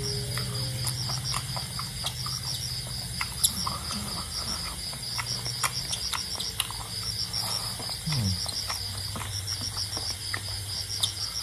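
An insect chirping in a steady train of short, high pulses, several a second, with a brief pause about halfway. Over it come close, scattered clicks and smacks of eating by hand: fingers mixing rice and curry on a plate, and chewing.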